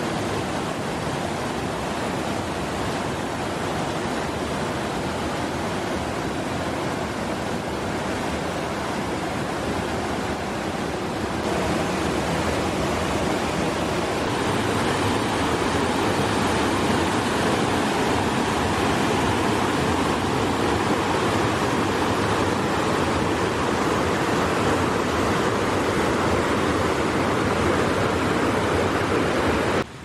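White water rushing over boulders in a river cascade: a steady, dense rush of water that grows louder about halfway through.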